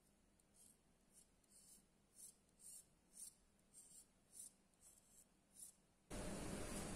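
Near silence with faint, short scratching and rubbing as fingers handle a small plastic spoiler on a micro servo, about ten light scrapes half a second apart. About six seconds in, a steady hiss with a low hum switches on abruptly.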